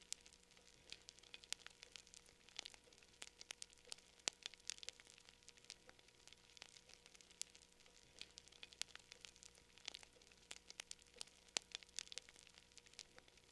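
Near silence with faint, irregular crackling clicks scattered throughout over a steady low hum.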